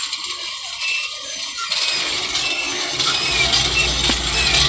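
Tubewell pump being spun by hand through a bicycle-wheel belt drive: a steady rubbing whir that grows louder about two seconds in, with a deep hum joining about a second later as the wheel speeds up.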